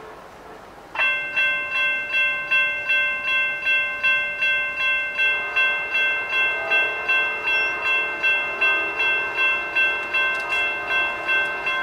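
Railroad grade-crossing bell starts ringing about a second in, striking evenly about three times a second: the crossing has activated for an approaching train.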